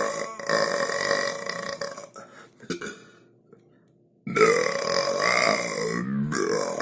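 Long, drawn-out human burps: one fades out about halfway through, then, after a second of near silence, another long burp starts abruptly, its pitch wavering and sliding down.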